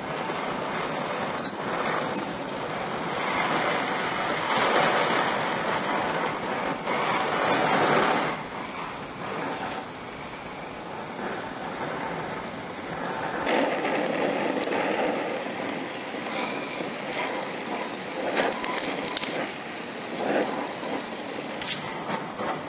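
DHC2000 oxyacetylene torch flame hissing steadily while gas-welding a chromoly tube joint with filler rod. From a little past halfway it turns crackly, with many sharp little pops as the puddle flares and throws sparks.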